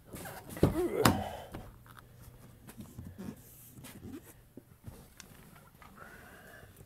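Handling noise from a hand-held phone being carried into a car's driver-side door opening: rustling and light knocks, with a louder cluster of sharp knocks about a second in.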